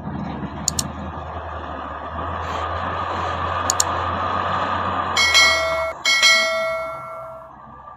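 Doosan DL420A wheel loader's diesel engine running under load as the bucket pushes into a sand pile, with two sharp clicks. About five seconds in, a loud, high, steady tone sounds twice, a short blast then a longer one.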